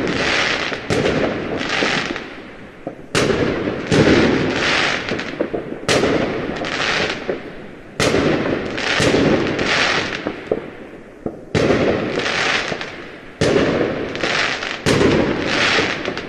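Fireworks bursting one after another: a sharp bang about every one to two seconds, each followed by about a second of crackling hiss that swells and fades.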